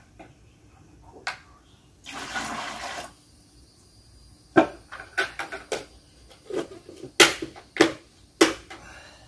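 Sugar syrup pours into a small plastic pail for about a second, then come a series of sharp plastic snaps and knocks as lids are pressed down onto the filled pails.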